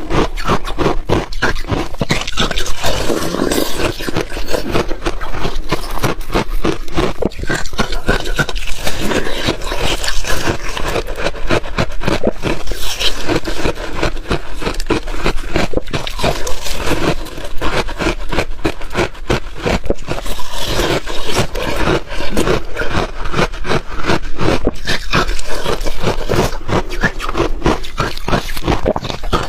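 Ice being crunched and chewed close to the microphone: a continuous run of dense, rapid cracks and crackles from the ice breaking between the teeth.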